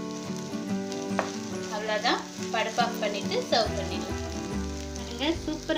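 Chana dal and sago sundal sizzling in a frying pan as it is stirred, with the spatula scraping and clicking against the pan, over background music.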